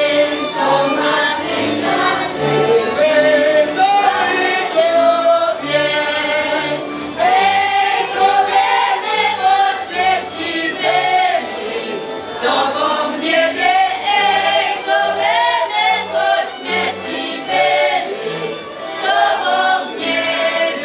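Girls' choir singing a folk song together, accompanied by a highland string band with fiddles, with low notes pulsing steadily underneath.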